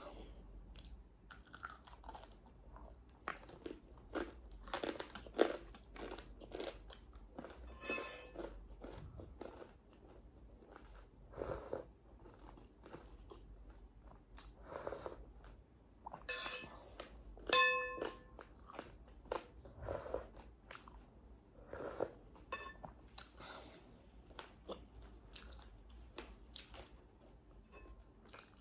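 Close-up eating sounds: irregular crunching, biting and chewing of crisp food, with a few brief clinks or ringing tones near the middle.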